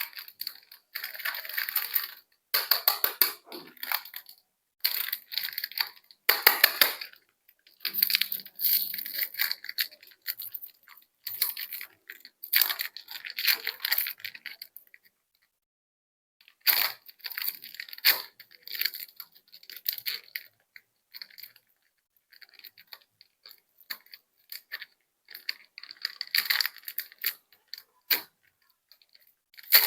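Plastic candy wrappers crinkling and tearing open in repeated short bursts, with silent gaps between them.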